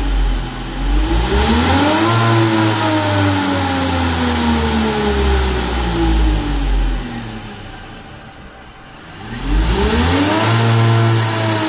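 Electric motor of a classic Fiat 500 EV conversion, spun in neutral through the original gearbox and revved at full throttle twice. Each time the whine climbs quickly in pitch, then winds down slowly as the motor coasts, with the sound dropping away between the two runs.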